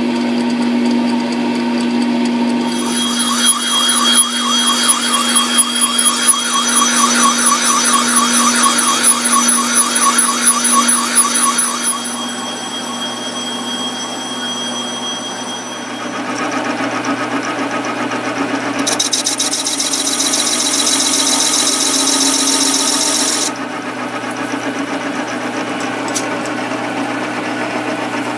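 Small metal lathe running with a steady motor whine while a beer-can ring is machined and filed on it. The pitch and texture change abruptly several times, with a fast rasping of the file on the spinning ring in the first part.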